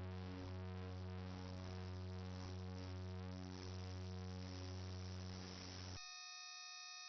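Quiet synthesized ambient music made of sustained, gently pulsing tones. About six seconds in it cuts abruptly to a steady chord of pure electronic tones.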